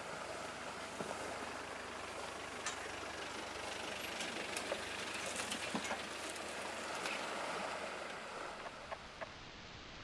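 A vehicle engine idling with a low, steady hum, along with splashing and sloshing water as elephants wade and push against each other. The hum fades near the end.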